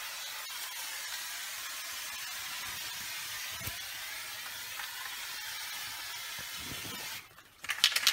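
Aerosol can of Homax oil-base orange peel texture spraying with a steady hiss. The spray stops about seven seconds in and the can is shaken, its metal mixing ball making a racket, a sign that the can is getting low.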